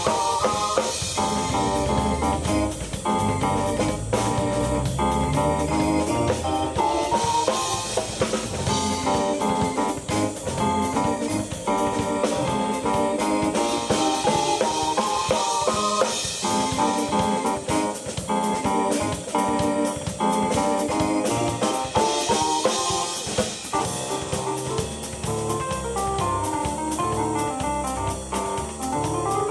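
Live keyboard and drum kit duo playing an instrumental rock jam: busy keyboard lines over a steady drum beat, with a rising keyboard run near the end.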